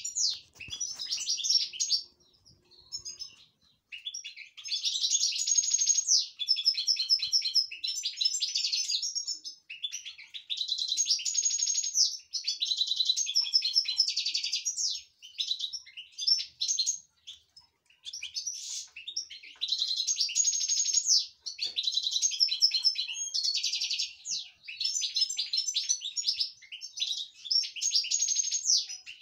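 Caged European goldfinch singing excitedly: long runs of rapid, high notes and trills, in several bouts broken by short pauses.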